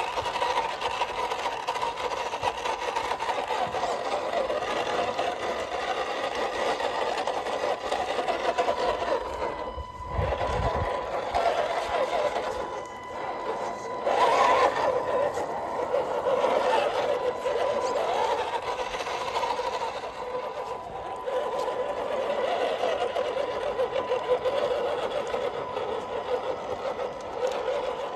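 Electric motor and gear drive of a radio-controlled Toyota pickup crawler whining as it drives along a dirt trail. The whine rises and falls with the throttle and drops out briefly a couple of times. A short low rumble comes about ten seconds in.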